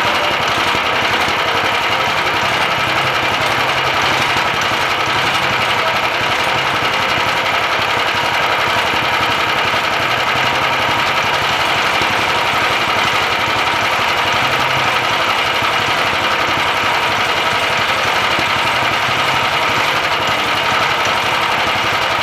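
Hudson portable band sawmill running steadily, its engine under load as the blade cuts through a black walnut log, with a dense, unbroken mechanical sound.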